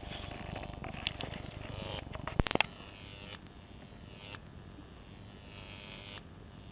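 High-voltage arc of a Jacob's ladder, powered by a neon sign transformer, crackling as it climbs the diverging wires. There are sharp loud snaps about two and a half seconds in. After that the sound is quieter, and it cuts off and re-strikes several times as the arc breaks at the top and starts again at the bottom.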